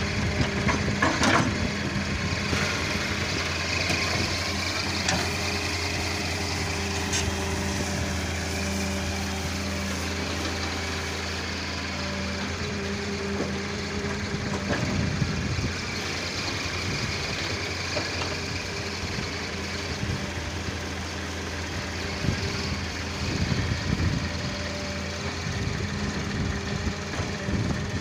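Daewoo wheeled excavator's diesel engine running steadily as it digs and dumps sand, with a few louder knocks and scrapes from the bucket working the sand.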